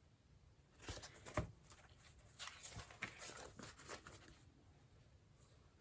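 Faint handling sounds of a fabric-hinged board folio being turned and shown: a few soft taps about a second in, then light rustles and ticks, otherwise near silence.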